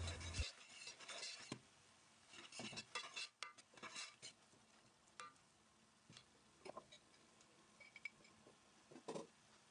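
Metal spoon scraping and tapping against a stainless steel pot while stirring onion fried with pepper paste and tomato juice: faint, irregular clicks and scrapes.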